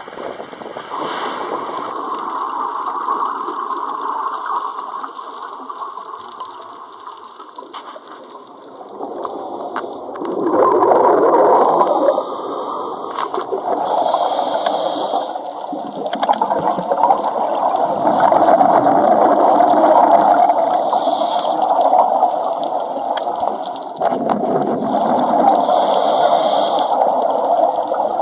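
Muffled water gurgling and rushing heard underwater, with scuba divers' exhaled bubbles rising in bursts every few seconds.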